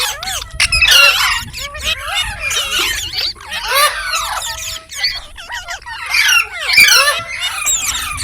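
Green parrot chirping and squawking: quick, high calls that swoop up and down in pitch and come in dense clusters, loudest about a second in and again near the end.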